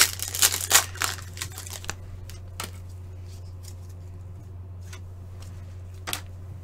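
Trading cards and their packaging being handled: crisp crinkling and rustling for about two seconds, then a few separate light clicks, over a steady low electrical hum.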